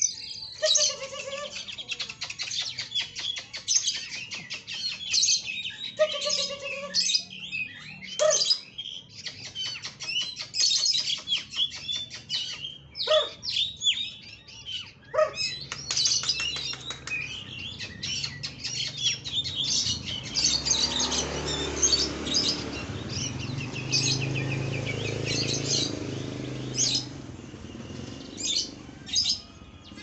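Caged oriental magpie-robin (kacer) singing a long, varied song of quick chirps and whistled phrases, packed close together. A low rumble runs underneath for several seconds about two-thirds of the way through.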